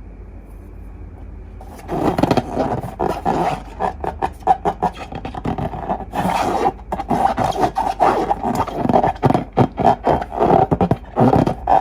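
Rubber balloons and slime being handled close to the microphone: dense, irregular rubbing, squeaking and squishing that starts about two seconds in.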